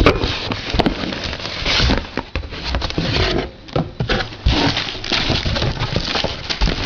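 Packaging being handled and opened by hand: a run of rustling and scraping broken by many sharp clicks and knocks.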